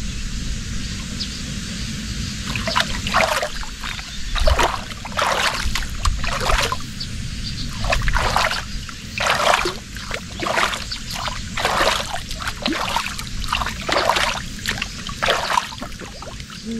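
Water scooped by hand and splashed and trickled over a small dog in a water-filled inflatable boat: a run of short splashes, about one a second, starting a few seconds in.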